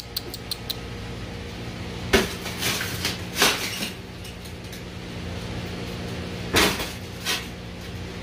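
Broken window glass being knocked and pried out of its frame: a few light clicks, then scattered knocks and glassy clinks, over a steady low hum.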